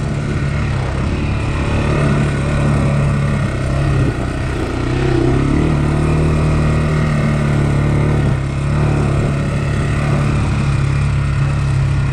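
Single-cylinder four-stroke engine of a Honda 400X sport ATV running steadily on a trail ride. The engine note eases off briefly about four seconds in and again about eight seconds in.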